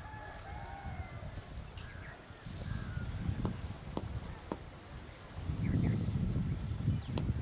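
Outdoor background noise: a fluctuating low rumble that grows louder about halfway through, under a steady high-pitched hiss and a few faint clicks.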